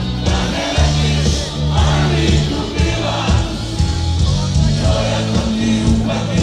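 Live rock band playing through a PA, with a lead vocal over steady bass and guitar, heard from within the crowd in front of the stage.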